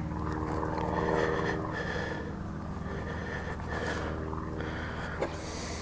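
A steady low engine-like hum runs throughout. A short breathy sniff comes near the start and again near the end, and a single click sounds about five seconds in.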